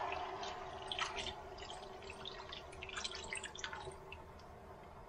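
Water dribbling and dripping from a glass measuring cup into a pot of browned chicken, tapering off into a few scattered drips.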